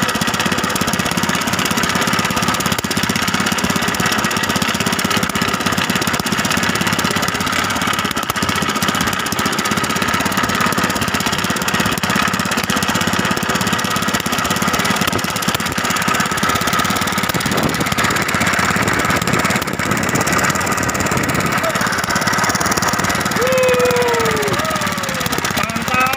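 Fishing boat's engine running steadily at trolling speed.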